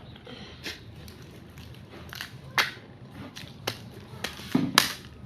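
Eating close to the microphone: irregular sharp crunches and mouth smacks, loudest about four and a half seconds in.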